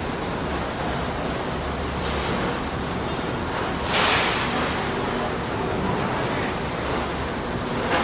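Steady factory machinery noise, a dense even wash with a low hum beneath it, and a short louder hiss about four seconds in.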